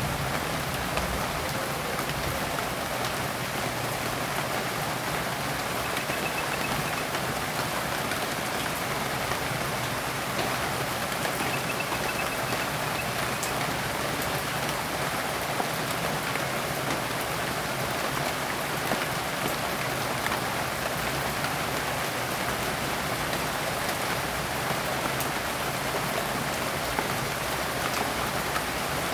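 Steady rain falling on leaves: a dense even patter of drops hitting foliage, with scattered small distinct drip ticks.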